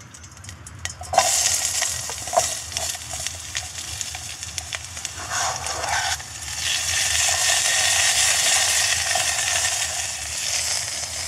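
Chopped peppers going into a small camping pot over a gas canister stove and sizzling, with light clicks and scrapes as pieces go in about one and two seconds in. The sizzling grows steadier and stronger after about six seconds.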